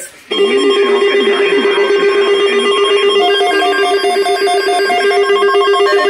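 Midland NOAA weather radio sounding its built-in alert alarm through its speaker, signalling an incoming tornado watch: a loud electronic tone pulsing rapidly. A second, higher beeping tone joins in about three seconds in.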